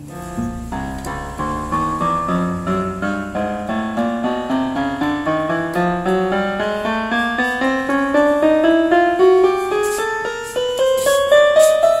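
Global GL444 electronic keyboard playing on its default piano voice: a steady run of single notes climbing up the keyboard, several notes a second.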